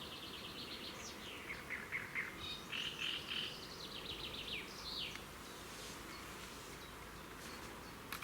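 Small songbirds singing in rapid trills and short chirping phrases, which fade out about five seconds in, leaving a faint steady background hiss.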